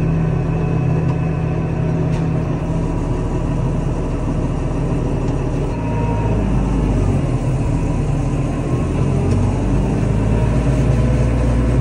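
Tractor engine running steadily under the load of a TMR mixer wagon, a loud low drone that deepens from about halfway through as the engine is pulled down near stalling.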